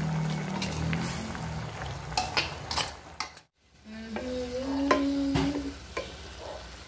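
A metal ladle stirring chicken afritada simmering in a wok, with sharp clinks against the pan. After a sudden cut, stir-fried vegetables sizzle in the wok as a spatula turns them, with another clink or two, over a steady low hum lasting about two seconds.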